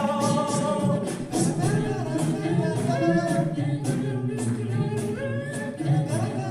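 An a cappella group singing a song in several-part harmony with no instruments, over a steady percussive beat.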